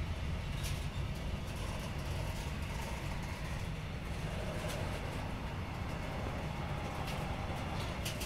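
Intermodal freight train of pocket wagons carrying semi-trailers rolling past very slowly: a steady low rumble of wheels on the rails, with a few sharp clicks.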